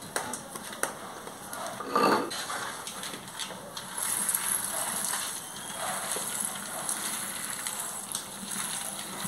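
Toasted pumpkin seeds poured from a bowl onto a stone metate, a dry rattling hiss that starts about four seconds in. A single knock comes about two seconds in.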